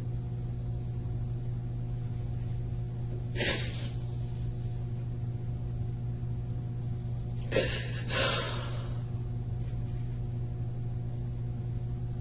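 A person's breaths, three of them: one about three and a half seconds in, then two close together near eight seconds. A steady low hum runs underneath.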